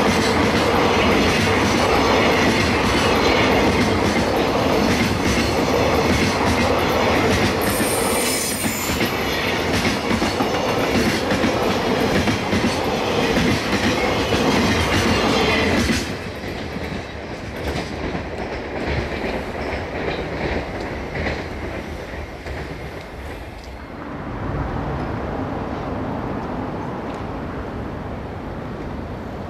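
Container wagons of a freight train rolling past at speed, a loud, dense rumble of steel wheels on rail, with a brief high-pitched wheel screech about 8 seconds in. About 16 seconds in the last wagon passes and the sound drops off suddenly to a fading rumble.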